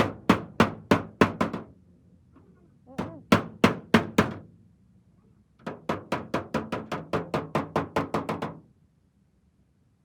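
Body hammer tapping out a dent in a car hood's sheet metal: quick runs of light, ringing strikes, about three to five a second, in three spells with short pauses, the last spell the longest and fastest.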